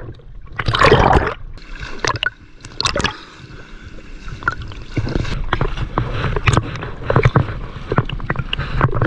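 River water splashing and gurgling around a swimmer in a strong current, with a string of irregular short splashes and a louder surge about a second in.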